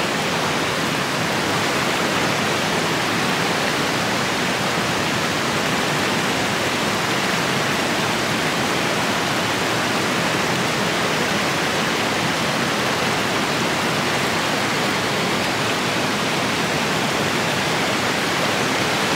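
Steady rushing of flowing water, even and unbroken, with no other sound standing out.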